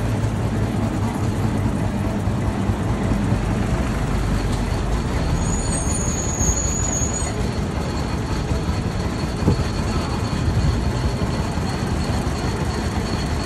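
Single-cylinder engine of a 1903 Cadillac running as the car moves slowly in traffic, a steady pulsing low rumble mixed with surrounding road traffic noise. A brief high thin tone sounds about six seconds in.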